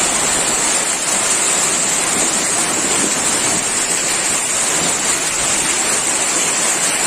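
Heavy rain pouring down in strong wind onto corrugated metal roofs: a loud, steady, unbroken rush of noise.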